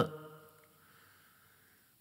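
Reverberant tail of a male reciter's chanted voice dying away in about half a second, then near silence: a pause between verses of Qur'an recitation.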